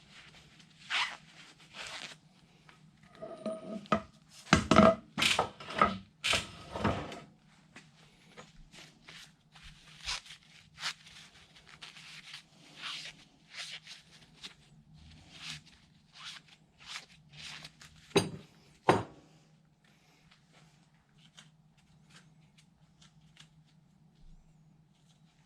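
Scattered clicks and knocks of metal parts being handled, with a cluster of louder ringing metallic clanks about four to seven seconds in and two sharp knocks a little past halfway. A steady low hum runs underneath.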